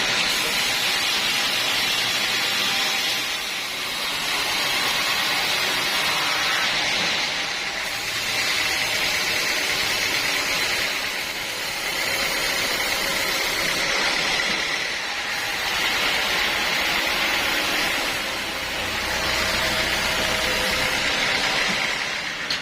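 Sawmill machinery running: a loud, steady mechanical noise with a strong high hiss that changes in character every few seconds.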